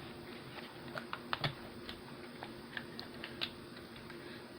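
Plastic parts of a Transformers Studio Series 86 Ratchet figure clicking and knocking as it is handled and transformed: scattered light clicks, the loudest about a second and a half in.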